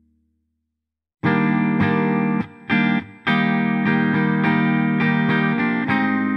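Background music: a guitar track starts after about a second of silence and plays on with short dips between phrases.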